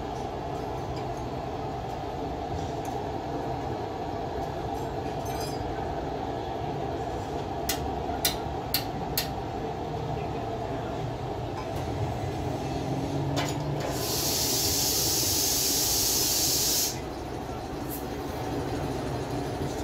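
Steady low rumble, with a few sharp clicks about eight seconds in. Then a loud hiss lasts about three seconds and cuts off suddenly.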